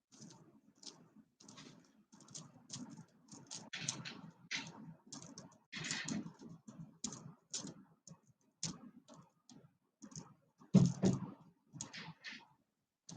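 Irregular small clicks and taps with low handling thuds, and one louder knock about eleven seconds in.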